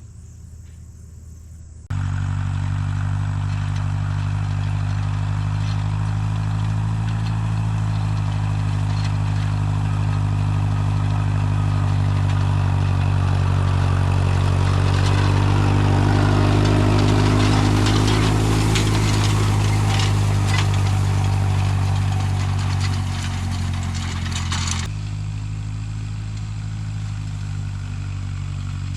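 Vintage John Deere tractor engine running steadily under load while working a hay field. It comes in suddenly about two seconds in, swells louder mid-way with added mechanical clatter as it passes close, then drops back near the end.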